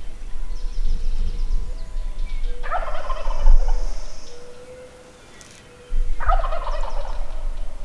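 A Merriam's wild turkey gobbler gobbling twice, each gobble a rapid rattling call about a second long, the second about three and a half seconds after the first. A low rumble lies underneath.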